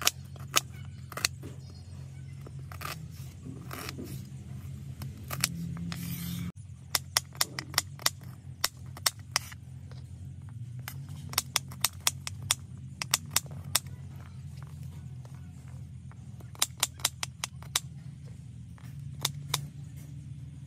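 Kitchen knife chopping shallots and garlic on a wooden cutting board: sharp taps of the blade striking the board, in quick runs of several strokes with pauses between, over a low steady hum.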